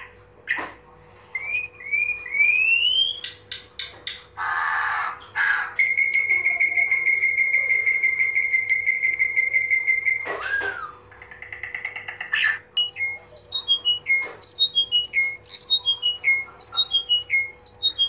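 A series of different bird calls: a few short rising whistled notes, a brief harsh call, a long steady whistle that ends in a falling slur, then a fast run of falling notes repeated two or three times a second.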